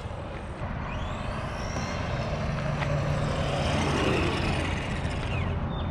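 Arrma Senton 4x4 Mega RC truck driving on asphalt. Its brushed electric motor whines, rising and falling in pitch with the throttle, and the truck is loudest as it passes close about four seconds in.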